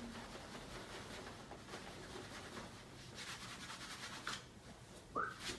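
Quiet rubbing and rustling on a padded chiropractic treatment table, with a short, sharper sound near the end.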